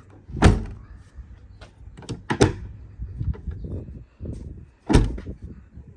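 Chevy Avalanche tailgate being opened and shut on its new all-metal latch: three heavy thuds, about half a second in, near two and a half seconds and about five seconds in, with lighter latch clicks between.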